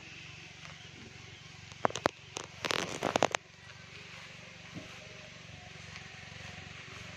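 Outdoor ambience with a steady low hum, broken by a few sharp clicks just under two seconds in and then a louder, dense cluster of clicks and rustling noise lasting under a second, about three seconds in.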